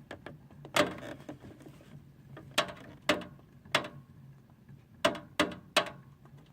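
Fedders window air conditioner's fan coasting down after being unplugged, giving about seven sharp, irregularly spaced clicks and knocks over a low hum. The owner calls the fan loose.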